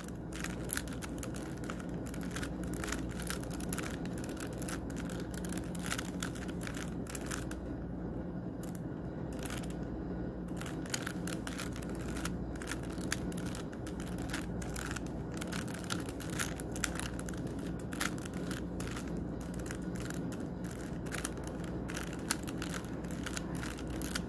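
Rubik's Cube layers being turned rapidly by hand: a fast, irregular run of plastic clicks and clacks, easing off briefly about a third of the way in, over a low steady hum.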